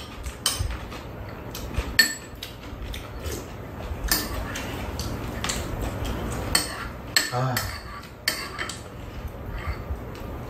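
Metal spoons and chopsticks clinking and scraping against ceramic bowls during a meal, in scattered, irregular clicks.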